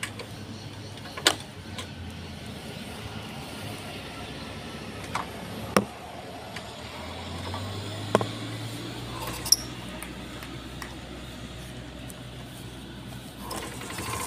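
A low, steady vehicle engine hum that swells about halfway through as a truck passes, with a handful of sharp clicks scattered through it.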